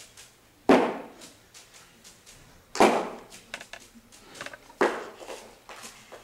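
Three loud, sharp knocks on a stage floor about two seconds apart, each with a short echo, with lighter taps and scuffs in between.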